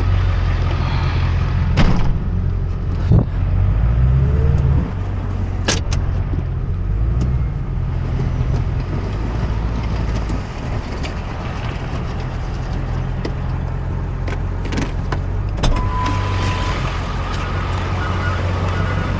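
Truck engine running steadily, rising in pitch briefly about four seconds in, with a few sharp knocks and clunks. Near the end a short steady beep, then a quick repeating beeping.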